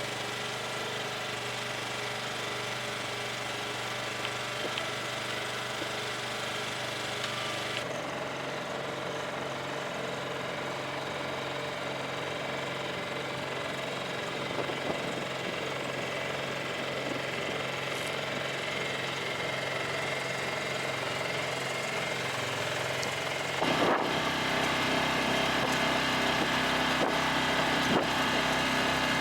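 Small sailboat's motor running steadily under way, with a low, even engine hum. The sound changes abruptly about a quarter of the way in and again near the end, where it grows louder.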